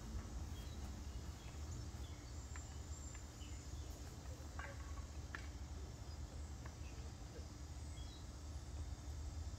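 Quiet outdoor ambience: a steady low rumble and a faint hum, with a few short bird chirps scattered through.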